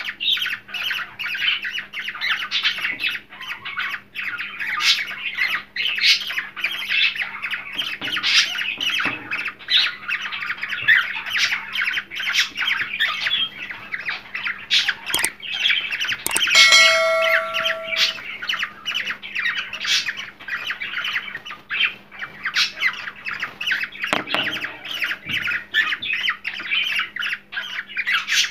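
Cockatiels chattering and squawking without a break, a rapid stream of short high calls, with one longer whistled note about seventeen seconds in.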